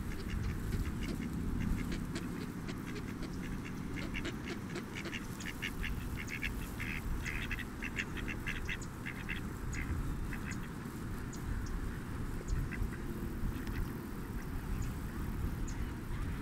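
Ducks quacking in a run of short, quick calls, busiest in the middle, over a steady low rumble.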